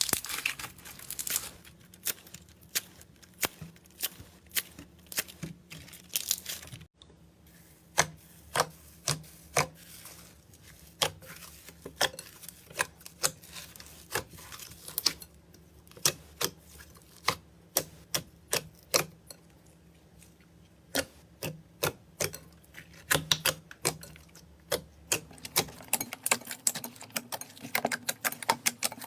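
Hand squeezing and kneading slime, making sharp, irregular clicking and popping sounds, two or three a second, with a short break about seven seconds in and a quieter stretch around twenty seconds in.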